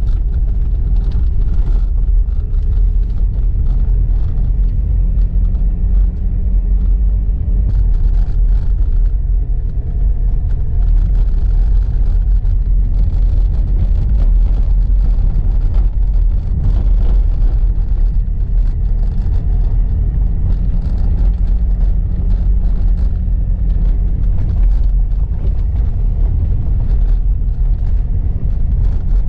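Car on the move: a steady low rumble of engine and road noise, with the engine note drifting slightly in pitch now and then.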